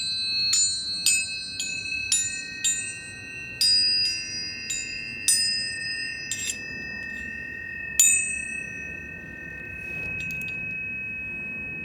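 Metal chimes struck one after another, about two bell-like notes a second. After a few slower strikes, the loudest comes about eight seconds in, and the last notes ring on.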